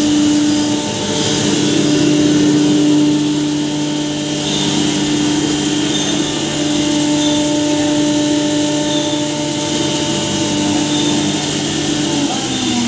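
Impact pulverizer (hammer mill) for grinding turmeric running steadily: a constant electric-motor and rotor hum over a rushing, whirring noise.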